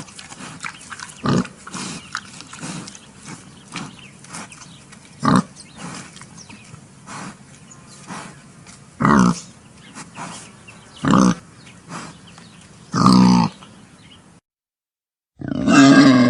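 Pigs grunting: about five loud, short grunts roughly two seconds apart, with quieter grunts between. After a brief silence near the end, a different sustained pitched sound begins.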